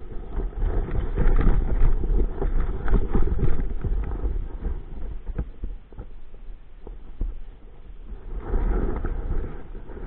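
Wind buffeting a body-mounted camera microphone in gusts, with a few scattered knocks from handling of the paragliding gear.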